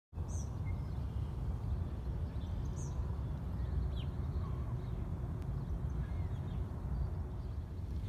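Outdoor ambience: a steady low rumble with a few faint, brief bird chirps scattered through it.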